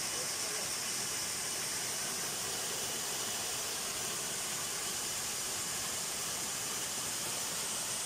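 Small waterfall pouring over rocks into a pool: a steady, even hiss of falling water.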